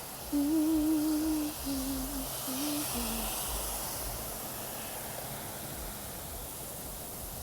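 Steady hiss of a heavy rain downpour, with a person humming a short wavering tune in several brief phrases during the first three seconds.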